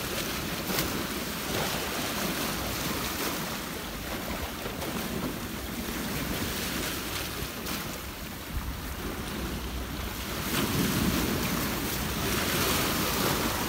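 Sea waves breaking and washing over shoreline rocks, with wind buffeting the microphone; one wave surges louder near the end.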